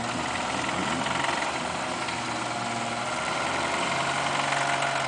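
Off-road vehicle's engine running steadily at low speed.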